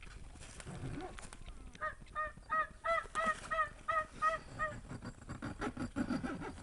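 Turkey yelps: a series of about nine short, evenly paced yelping notes, roughly three a second, running for about three seconds starting around two seconds in.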